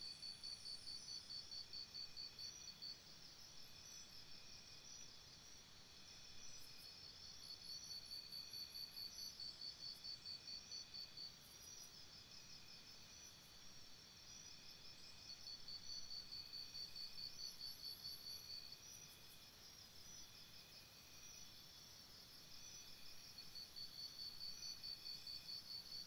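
Faint rainforest insect chorus: a high pulsing trill that comes in bouts of three to four seconds, about every eight seconds, over a steady fainter chirring of other insects.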